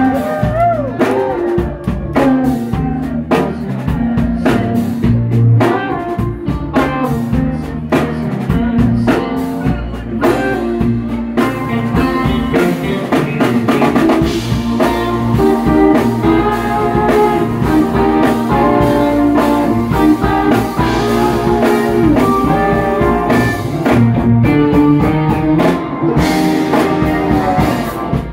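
Live band playing: electric guitars and bass over a drum kit, with keyboards.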